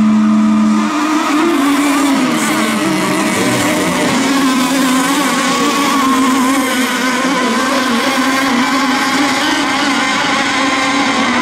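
Radio-controlled racing boats running at full throttle during a race: a loud, steady, high-pitched engine buzz, with several pitches layered and wavering slightly as the boats run.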